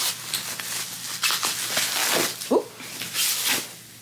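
Plastic packaging and bubble wrap crinkling and rustling as a parcel is torn open by hand, in irregular crackly bursts. A brief sliding voice-like sound comes a little past the middle.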